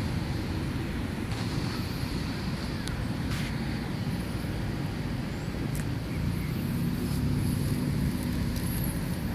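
Steady low outdoor rumble of road traffic mixed with wind on the microphone. A low engine hum rises out of it about six and a half seconds in, and there are a few faint clicks.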